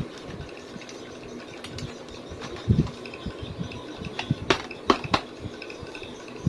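Pond catfish feeding at the surface on crickets scattered over the water: a soft steady splashing with a few sharper splashes and clicks, most of them just past the middle.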